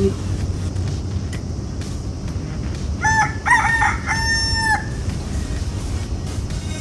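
A rooster crows once, about three seconds in: a few short, choppy notes and then one long held note that drops off at the end. A steady low background noise runs underneath.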